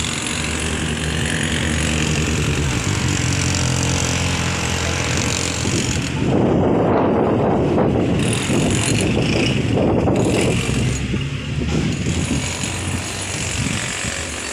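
Road traffic noise with an engine running steadily, and strong wind buffeting the microphone, heaviest from about six to eleven seconds in.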